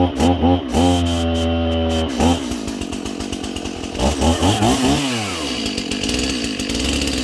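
Stihl MS 271 Farm Boss chainsaw running. At first the engine speed surges and sags about three times a second, then it holds steady. About two seconds in it goes into a rougher, noisier running as the chain cuts through ash, with the engine speed dropping and climbing again around the middle.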